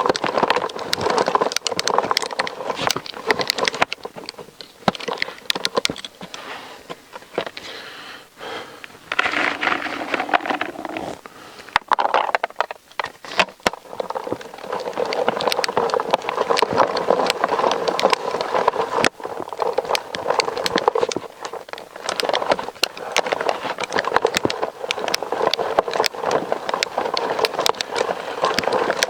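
Ridge Monkey boilie crusher with its handle turned by hand, its blades grinding and cracking hard boilies in a dense run of crackling and scraping, easing off for a few seconds twice. The boilies are being run through to clean fish mush off the blades.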